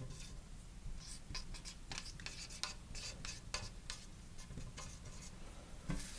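Writing or drawing by hand: a run of short, uneven scratching strokes of a pen on a surface, faint, over a steady low hum.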